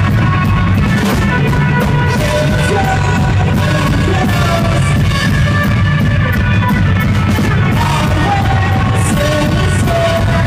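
Rock band playing live, loud: electric guitar and a drum kit with steady cymbal hits, with a voice singing over it.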